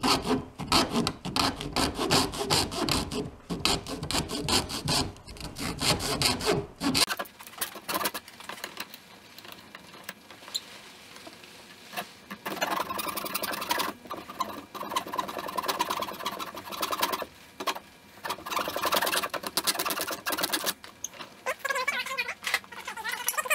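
A bare hacksaw blade, held in the hand, sawing through an old plastic inline fuel filter in quick back-and-forth strokes. The strokes are loudest for the first several seconds, then lighter after a short lull.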